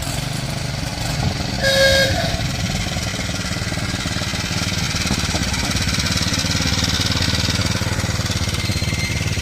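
Miniature railway locomotive running with a steady low, rapid pulsing as the train comes in; about two seconds in it gives a brief toot.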